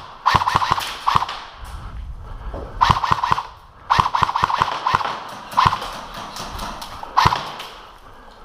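Airsoft electric gun firing several short bursts: rapid clicks of the shots over the whirr of the gearbox, with brief pauses between bursts.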